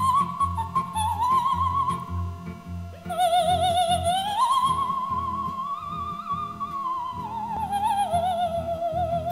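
Music: a song with a high, wavering lead melody that glides up about four seconds in and back down near the end, over a bass line.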